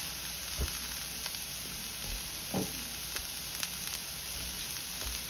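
Shredded cabbage and carrot sizzling in oil in a nonstick frying pan: a steady frying hiss with a few faint clicks.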